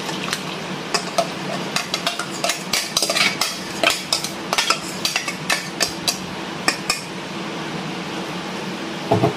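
Metal spoon clinking and scraping against a plastic measuring jug and a stainless steel mixing bowl as thin liquid is poured and scraped into cake batter. A quick run of light clinks fills the first seven seconds or so, then it goes quieter.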